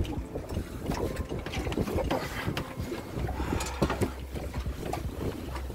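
Wind buffeting the microphone on a small boat on choppy water, with irregular knocks, clicks and rattles of the boat and gear.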